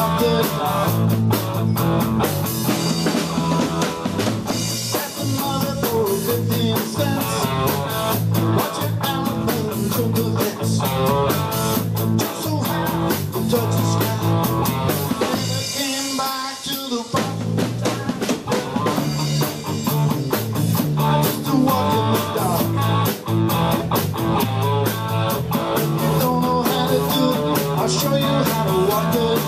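Live rock band playing an instrumental passage: electric guitar, bass guitar and drum kit with a steady beat. About halfway through the band stops for roughly a second, then comes back in.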